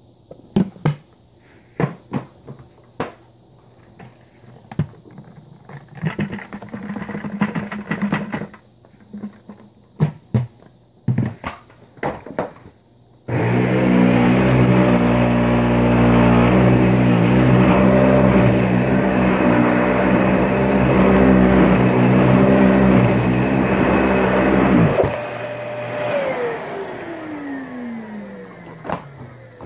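Vacuum cleaner handled with a series of plastic clicks and knocks, then switched on about 13 seconds in: its motor runs loud and steady for about 12 seconds, is switched off and whines down in pitch as it spins to a stop.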